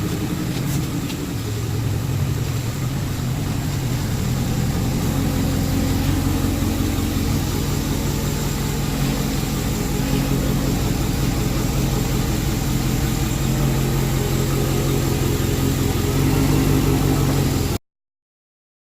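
Pontiac G8 GT's 6.0-litre V8 idling steadily, a little louder just before the sound cuts off abruptly near the end.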